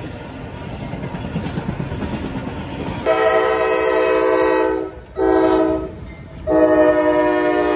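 Rolling rumble of a freight train's wheels passing close by, then a diesel locomotive's air horn sounding: a long blast about three seconds in, a short blast, then another long blast held through the end.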